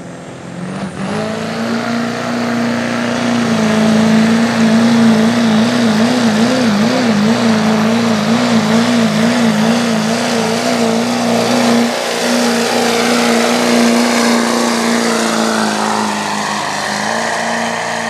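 Chevrolet diesel pickup's engine held at full throttle while pulling a weight-transfer sled. The loud, steady engine note builds over the first couple of seconds, wavers up and down for several seconds in the middle, then holds steady again.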